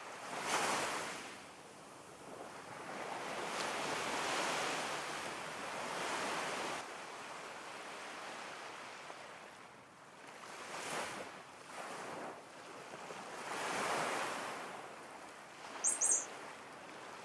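Outdoor ambience of wind, rising and falling in gusts of noise every few seconds, with a quick pair of high bird chirps near the end.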